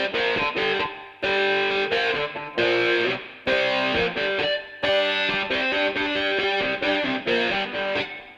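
Rock music: a distorted electric guitar playing a riff of held notes, with short breaks between phrases.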